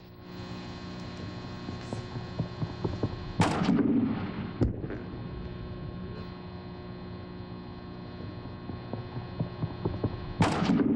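Handspring vault over a leather vaulting horse: light running footsteps on the runway, then a loud thump on the springboard about three and a half seconds in and a sharp smack about a second later. Another loud thump comes near the end as a second vault run reaches the board. A steady electrical mains hum lies under it all.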